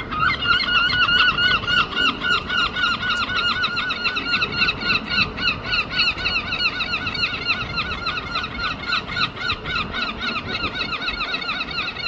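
Two herring gulls calling together in a fast, unbroken run of short yelping notes, about four a second.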